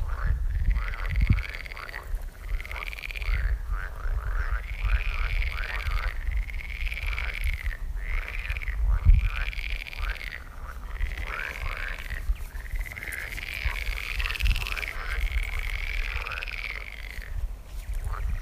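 A chorus of animal calls, many overlapping, each rising and falling in pitch, over a low rumble.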